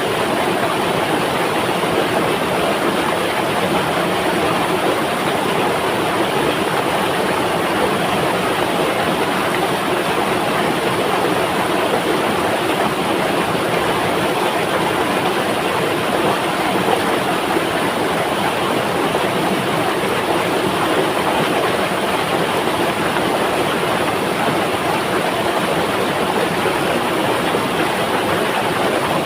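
Flowing river water rushing steadily, an even unbroken noise with no change in level.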